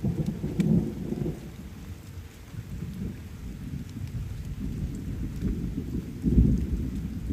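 Wind buffeting the microphone: a low, gusty rumble, swelling about a second in and again about six seconds in.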